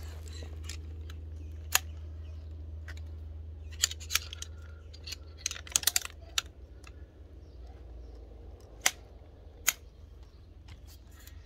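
Camp-chair frame poles clicking and clacking into their plastic hubs as the frame is snapped together: about ten sharp, irregular clicks, several bunched together around the middle, over a steady low rumble.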